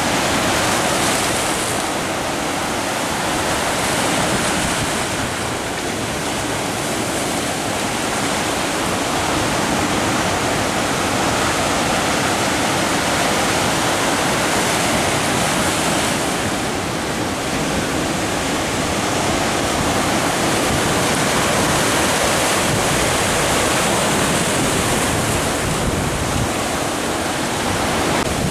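Sea surf breaking and washing over rocks: a steady rush of foaming waves that swells and eases every few seconds.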